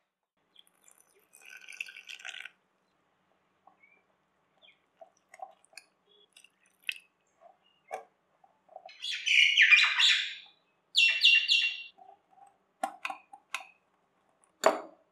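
Wire whisk stirring a thick flour-and-curd batter in a glass bowl, with scattered clicks of the wires against the glass. Loud, high, chirping sounds come in short repeated pulses about two-thirds of the way through.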